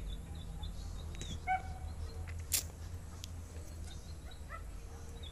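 Faint animal calls, with small high chirps repeating in the first second and a few short calls about a second and a half in, over a low steady hum.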